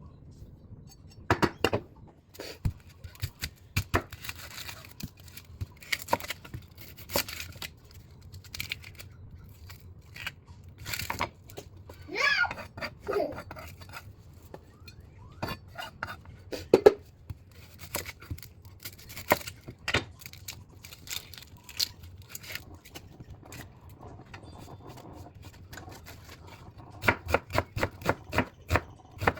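Dishes and cutlery clinking and knocking in scattered, irregular strikes, with a quick run of clicks near the end.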